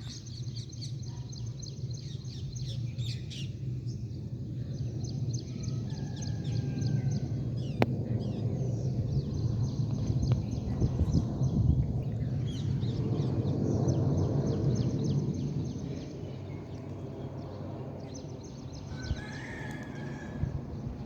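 Boeing 787 jet engines rumbling on landing approach, swelling to a peak about two-thirds of the way through and then fading as the aircraft passes. Birds chirp rapidly throughout.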